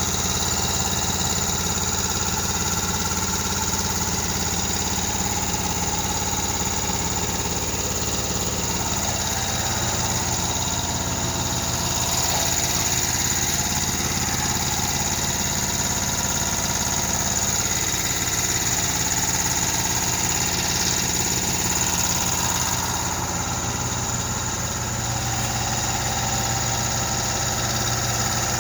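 Cummins diesel engine idling steadily after a cylinder head rebuild, its speed sagging slightly a couple of times, with a steady high whine over it.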